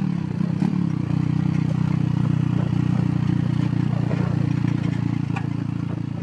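Motorcycle engine of a tricycle (motorcycle with sidecar) running steadily under way, heard from inside the sidecar, with light rattling of the body.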